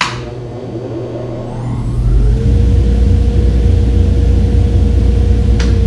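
A 3 hp dust collector started by remote: a sharp click as the contactor pulls in, then the blower motor spins up, rising in pitch over about two seconds, and settles into a loud, steady run. A second short click comes near the end.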